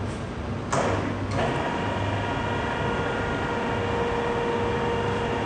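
Electric overhead crane hoist lifting a load: a clunk under a second in, then the hoist motor starts and runs with a steady whine of several even tones.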